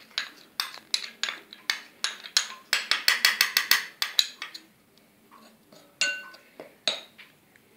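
A spoon clinking and scraping against bowls as cornflour is knocked out of a small bowl into a glass mixing bowl. The clinks come in a quick run, fastest about three seconds in, then thin out to a few single clinks near the end, one with a brief glassy ring.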